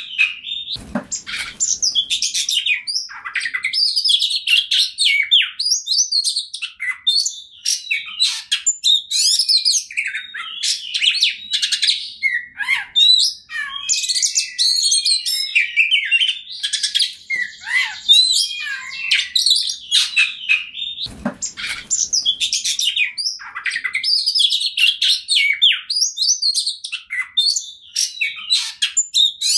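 Oriental magpie-robin singing a long, fast, varied song of whistles and chirps with no pauses. Two dull thumps sound under it, about a second in and about twenty-one seconds in.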